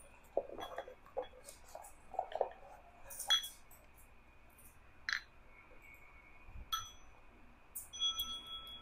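Small metal singing bowl being handled: some light clatter, a few short clinks with the wooden striker, then struck near the end so that it rings on with a clear, steady tone.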